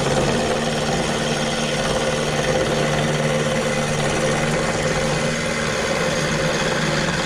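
JET mini wood lathe running steadily at low speed, about 1,000 RPM, while a scraper cuts the corners off a square basswood blank: the motor's hum under the rasping of the tool on the spinning wood, the roughing stage of turning it round.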